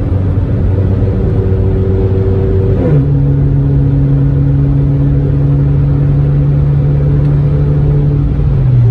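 Turbocharged Buick's engine heard from inside the cabin at highway speed: a steady drone that steps up in pitch about three seconds in and drops back lower near the end.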